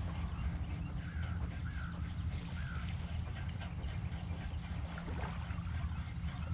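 Wind rumbling on a head-mounted camera's microphone while a spinning reel is cranked to retrieve a lure. A few short bird calls come about one to three seconds in.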